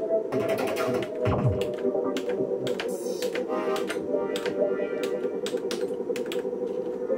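Korg microKORG synthesizer playing a sustained tone while its mini keys and program buttons are pressed, with many sharp clicks from the keys and buttons. The repaired keys and buttons are being tried out.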